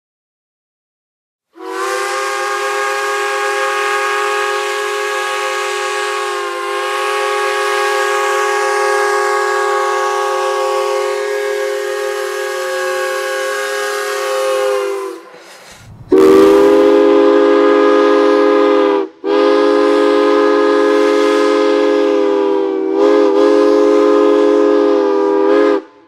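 Chime steam whistle blowing, several notes sounding together over a hiss of steam: one long steady blast of about thirteen seconds from a whistle labelled as possibly a CN four-chime. After a short break a louder, lower-pitched chime whistle sounds in two long blasts, the first cut off sharply.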